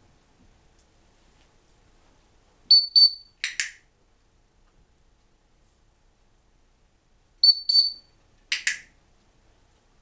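Dog-training whistle giving two short high pips, twice, each pair followed about a second later by a brief hissing burst.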